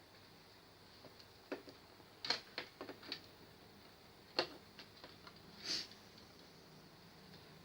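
Irregular light clicks and taps of small parts and tools being handled during a TV repair, with a short scrape near the end, over a faint steady hum.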